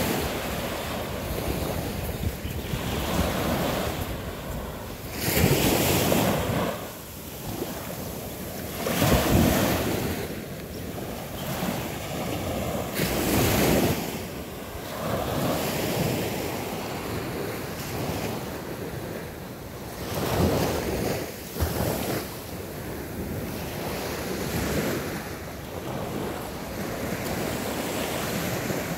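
Small ocean waves breaking and washing onto a sandy bay shore, the surf rising and falling in swells every few seconds, with wind buffeting the microphone.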